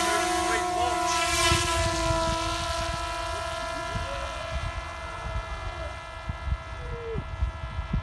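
Parrot Disco flying wing's electric pusher motor and propeller running at a steady high whine just after its hand launch, slowly fading as it climbs away. Wind rumbles on the microphone underneath.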